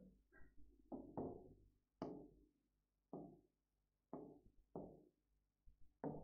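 Faint knocks and taps, about eight of them spaced roughly a second apart, each dying away quickly.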